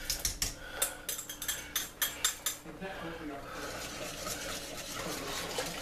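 A whisk stirring cream into soup in a stainless steel stock pot: a quick run of clinks against the pot, about five a second, for the first two and a half seconds, then a softer steady swishing.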